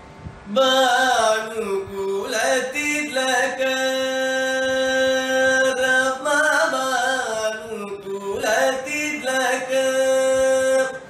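Carnatic music in raga Dharmavathi: a sustained melodic line with sliding, oscillating ornaments, starting about half a second in.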